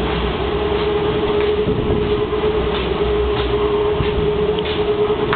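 Strong pre-typhoon wind rumbling and buffeting on the microphone, with a steady hum of one unchanging pitch underneath.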